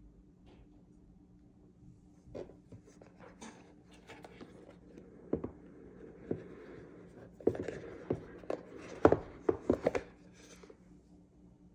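Small clicks, taps and light scraping of Insta360 ONE RS camera parts being handled and fitted together, sparse at first, then a denser run of sharper clicks in the second half.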